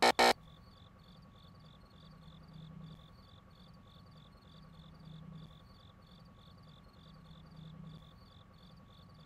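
A short burst of synth music cuts off just after the start, leaving faint, evenly repeating high-pitched cricket chirps with a low hum that swells and fades every two to three seconds.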